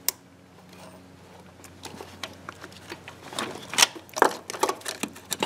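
Light, irregular metallic clicks and scrapes as a GM HEI distributor is turned by hand in its bore on a small-block Chevy V8. A sharp click comes right at the start, and the clicks grow busier from about two seconds in.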